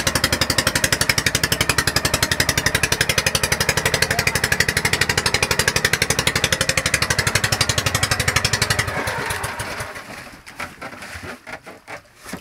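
Small outrigger fishing boat's engine running with a fast, even chugging, then dying away and stopping about nine seconds in. After it stops, only faint water splashes against the hull remain.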